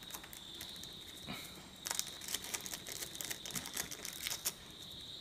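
Small clear plastic packet crinkling and crackling as it is pulled open by hand, mostly in a run of sharp crackles from about two seconds in that lasts a couple of seconds.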